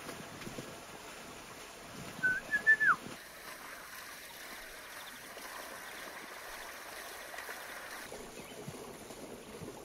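Low, steady outdoor hiss, with one short high whistling call about two seconds in that holds its pitch briefly, steps up, then drops away.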